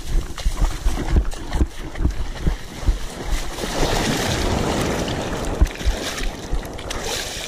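Surf washing in the shallows with wind buffeting the microphone. From about halfway through, water splashes around the hands as a snook is lowered into the surf and kicks free.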